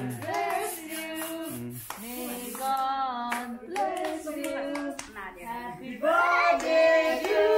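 A small group of voices singing together while clapping along in time. The singing gets louder near the end.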